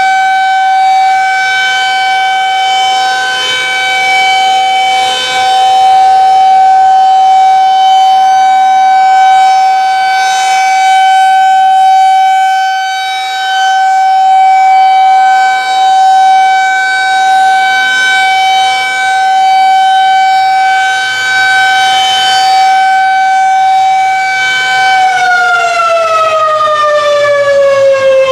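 Federal Signal 2001 SRNB rotating outdoor warning siren sounding a loud, steady single-tone alert on its monthly test, the sound swelling and fading as the head rotates. About 25 seconds in the pitch starts falling steadily as the siren winds down.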